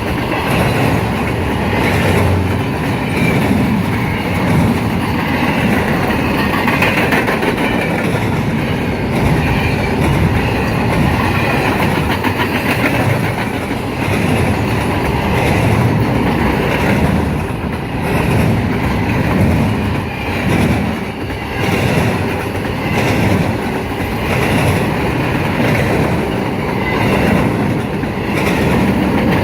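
CSX freight train's cars rolling past steadily, wheels clacking over rail joints in uneven groups.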